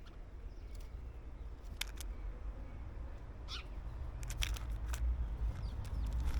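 Wild garden birds at a seed feeder close to the microphone: a handful of short, sharp ticks and chirps, scattered irregularly, over a steady low rumble.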